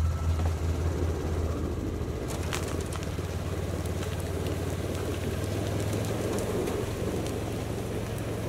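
A small engine idling steadily.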